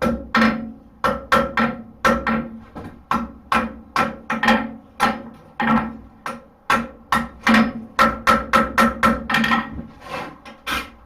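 Blacksmith's hammer striking hot horseshoe steel on an anvil: a steady run of blows, about two to three a second, each ringing briefly, with a short lull near the end.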